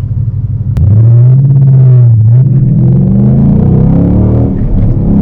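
2017 Ford Mustang GT's 5.0 V8 running through an MBRP Race catback exhaust while driving, with a low drone. About a second in it turns suddenly louder, and from the middle the note rises in pitch as the engine pulls.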